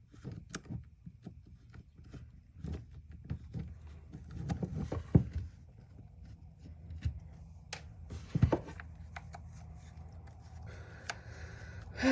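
Scattered clicks and light knocks of a screwdriver working on screws and a plastic tool housing being handled on a workbench, with louder knocks about five seconds in and again about eight and a half seconds in.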